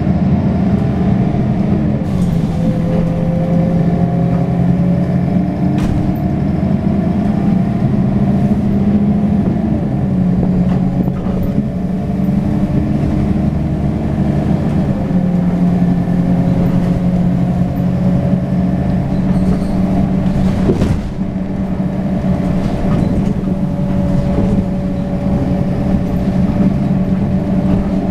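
Mercedes-Benz Citaro O530 city bus's OM906hLA six-cylinder diesel running under way, heard from inside the passenger cabin, its engine note rising and falling as the bus drives. A sharp knock sounds about six seconds in and another about twenty-one seconds in.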